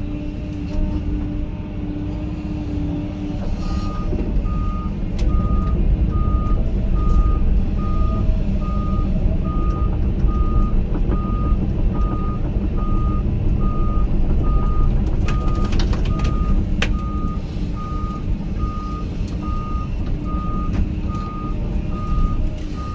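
Heavy loader's diesel engine running under load while its backup alarm beeps steadily, about one beep a second, starting a few seconds in as the machine reverses. A couple of sharp knocks stand out above the engine.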